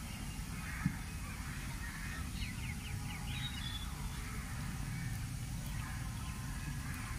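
Outdoor ambience of birds calling over a steady low rumble, with a quick run of short chirps about two and a half seconds in.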